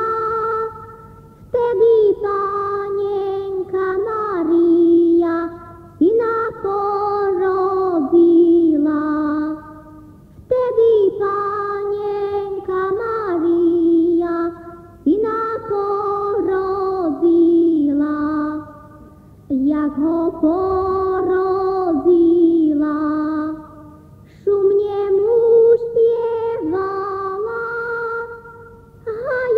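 Slovak folk Christmas carol sung by a high voice without accompaniment, in short phrases of four to five seconds with a brief pause for breath between each.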